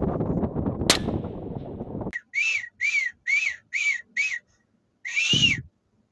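Low wind rumble for about two seconds, then five short, high whistle-like calls about two a second, each rising and falling in pitch, followed by one longer call.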